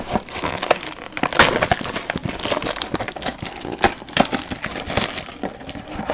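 Plastic shrink wrap crinkling and crackling, with scattered sharper snaps, as hands tear it off and handle a sealed cardboard trading-card box.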